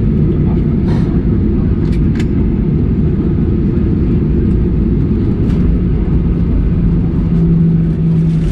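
Steady low rumble inside the cabin of a Boeing 737-800 taxiing after landing, its CFM56 engines running at low power. There are a few faint clicks, and a low hum grows stronger near the end.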